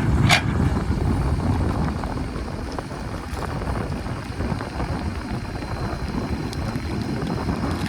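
Diesel engine of an earthmoving machine running steadily, with wind buffeting the microphone.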